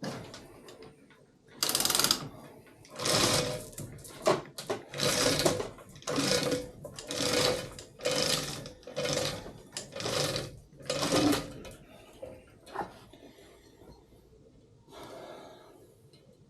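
A run of about ten short, noisy rasping strokes, roughly one a second, from hand work on a metal diesel cylinder head, followed by a single click and a fainter stroke near the end.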